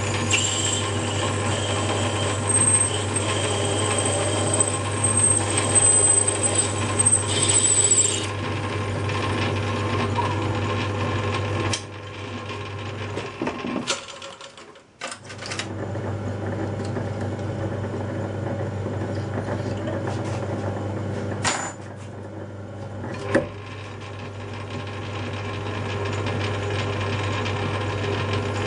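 Myford lathe running with a steady motor hum while a twist drill bores into a brass workpiece, giving a high, steady squeal for the first eight seconds or so. About halfway the machine runs down almost to silence and then starts up again, and a couple of sharp clicks come later.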